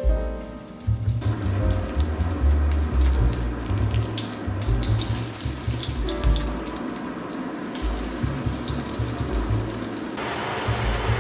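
Water running from a kitchen tap into a sink, a steady rush starting about a second in, over soft background music.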